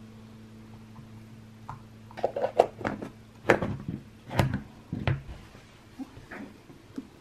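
A plastic food container being handled and its snap-on lid pressed shut on a plastic cutting board: a run of sharp plastic clicks and knocks, the loudest a few seconds in.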